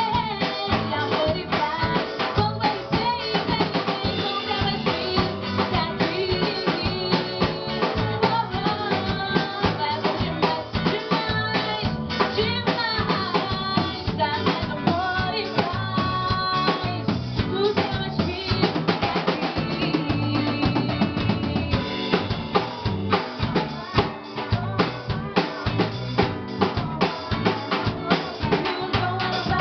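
A band playing carnival dance music with a steady drum-kit beat, snare and rimshots over pitched instruments.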